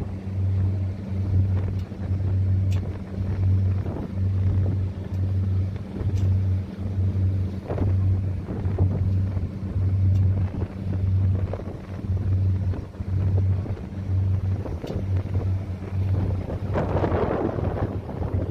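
A tour boat's engine running, giving a low hum that throbs a little more than once a second. Wind rushes over the microphone throughout, with a louder gust near the end.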